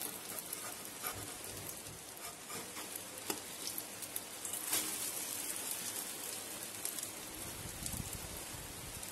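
Omelette of egg, onion and green chilli frying in mustard oil in a nonstick pan on low heat: a steady sizzle, with a few soft clicks of the spatula as the omelette is lifted and turned over.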